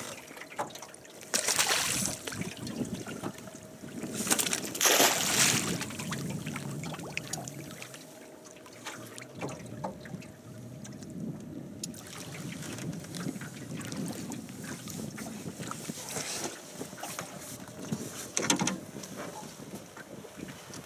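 Water splashing and knocking around a small fishing boat on a river, with louder splashes about two, five and eighteen seconds in, as a hooked pike is played to the boat.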